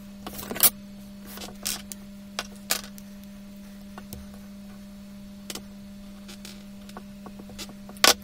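Sped-up marker and plastic set square working on drawing paper: short scratches and knocks at irregular intervals, over a steady low hum.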